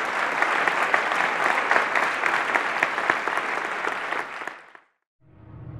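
Audience applauding at the end of a talk, the clapping fading out about four and a half seconds in.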